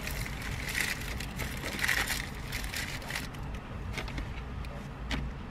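Paper sandwich wrapper crinkling and rustling in irregular bursts as a burger is handled, with a few light clicks, over a steady low rumble in the car cabin.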